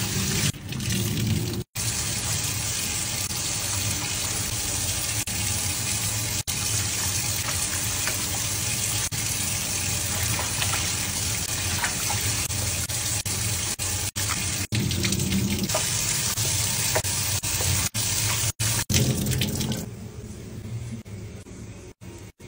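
Tap water running and splashing into a stainless steel sink, stopping near the end.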